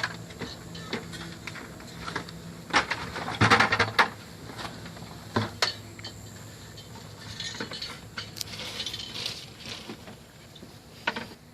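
Honeybees buzzing steadily around an opened hive, with several sharp clinks and knocks, most of them between about three and six seconds in.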